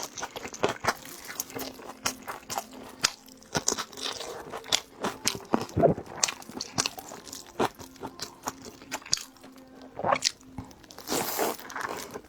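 Close-up eating sounds: biting into and chewing a large steamed dumpling, with irregular wet mouth clicks and smacks.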